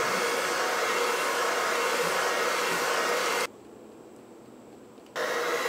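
Electric hand mixer running at its lowest speed, beating cake batter in a stainless steel bowl. It stops about three and a half seconds in and starts again near the end.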